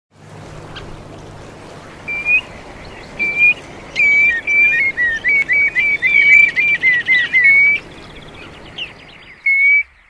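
Wading birds calling: clear, high whistled notes, a few at first, then a quick run of them from about four to eight seconds in, some slurring downward, with one last note near the end.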